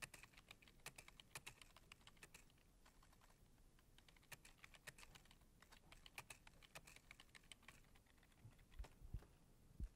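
Faint typing on a computer keyboard: quick runs of key clicks with short pauses between them as a line of text is entered. A few louder dull thumps come near the end.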